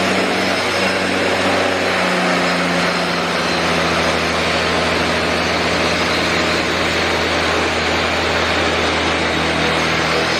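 Angle grinder with a diamond cup wheel grinding a concrete floor, running steadily under load, with a slight shift in pitch about two seconds in.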